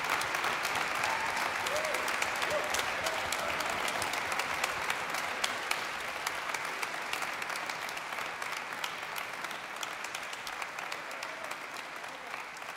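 Audience applauding, many hands clapping at once, gradually growing quieter.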